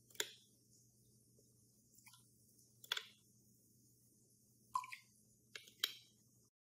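A few light plastic clicks and taps, five or six at irregular intervals, one with a brief ringing tap, as a plastic vinegar bottle and a plastic measuring spoon are handled over a glass measuring cup.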